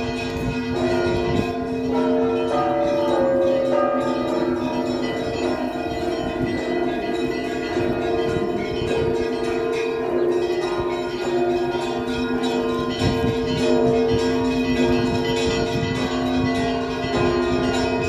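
Russian Orthodox church bells of the Trinity-Sergius Lavra bell tower ringing together in a full peal (zvon). Low bells keep sounding steadily beneath quicker, changing higher notes.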